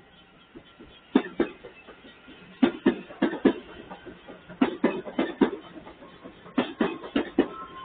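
Wheels of a CPTM 9500-series electric multiple-unit train clacking over the rail joints at a level crossing. The sharp knocks come in pairs, one pair for each bogie, repeating every second or two.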